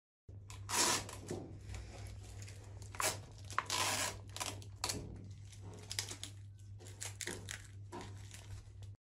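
Flower stems and foliage rustling and crinkling as hands gather and straighten a large bouquet, with a few sharper tearing crackles, over a low steady hum.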